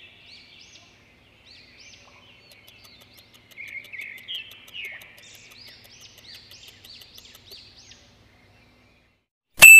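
Small birds chirping and twittering in many quick high calls. Near the end a single loud, bright ding rings out sharply.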